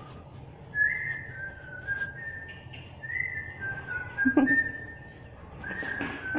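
A person whistling a tune: short phrases of held notes that step up and down in pitch. One short clunk sounds a little past four seconds in.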